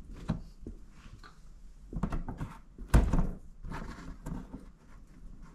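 A screwdriver prying the tab of a plastic push-rivet clip under a car's rear bumper: a string of plastic clicks and knocks, the loudest a sharp knock about three seconds in.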